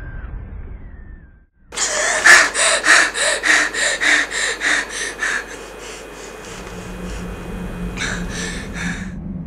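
A woman panting in quick, heavy gasps, about three a second, that weaken and die away after a few seconds, then three more gasps near the end. A low steady hum comes in during the second half.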